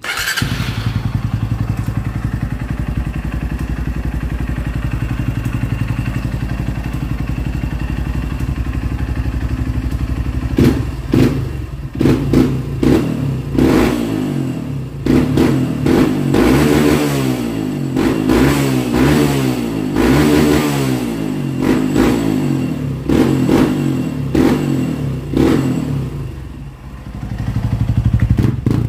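Honda CRF150L's single-cylinder four-stroke engine idling steadily through its exhaust, then revved again and again with quick throttle blips for a long stretch, settling back to idle near the end.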